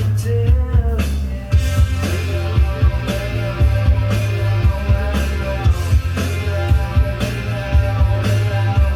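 Loud music with a steady drum beat, heavy bass and singing.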